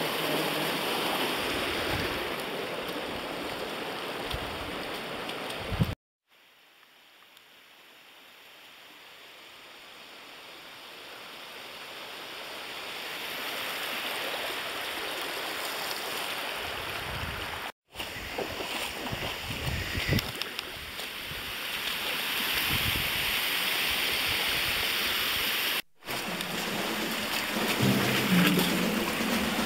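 Creek water running steadily over sandstone slabs and small cascades, with three brief dropouts where the sound cuts out; after the first it fades slowly back in. Low rumbling near the end.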